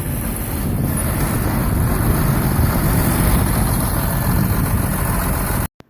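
Engine running steadily at a constant speed; the sound cuts out abruptly near the end.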